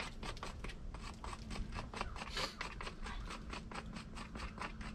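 The bristles of a hoof pick's brush scrubbing dirt out of the sole of a horse's hoof, in quick, repeated scratchy strokes, several a second.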